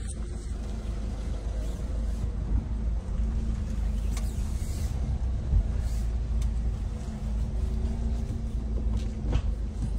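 Peugeot Rifter diesel engine running low and steady, heard inside the cabin as the van moves off without throttle on its newly fitted clutch kit. The clutch takes up smoothly with no judder. A few light clicks sound over the hum.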